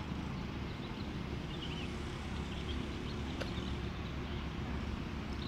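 Outdoor lakeside ambience: a steady low rumble with scattered faint, short high chirps of small birds.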